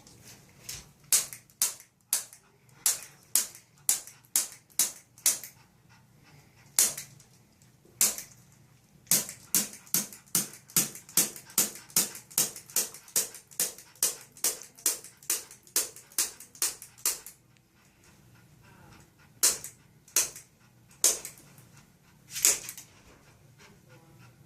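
Handheld spring-loaded chiropractic adjusting instrument clicking as it delivers impulses along the dog's spine: a long run of sharp clicks, two or three a second, then a pause and three more spaced clicks near the end.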